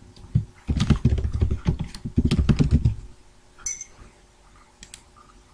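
Computer keyboard being typed on: a quick run of keystrokes for about two seconds as a short message is entered, followed by a few single key clicks.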